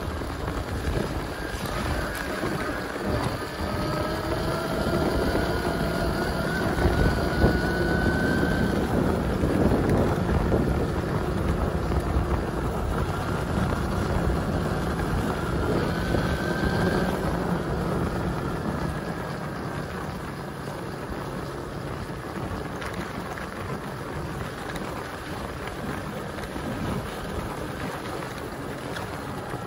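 Rushing wind noise on the microphone and tyres rolling over a wet dirt trail while riding, with a faint whine that rises in pitch a couple of seconds in and again around the middle, easing off in the last third.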